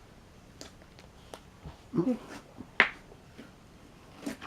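Slime being squeezed and pressed in the hands, giving a few short wet pops and squelches, the loudest a sharp pop about three seconds in. No proper fart noise comes out.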